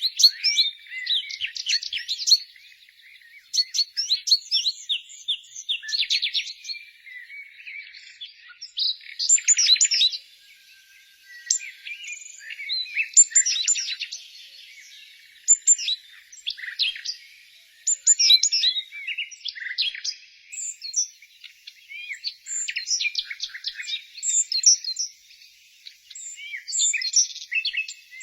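Several small songbirds chirping and trilling, short high calls coming in quick bursts with brief pauses between them.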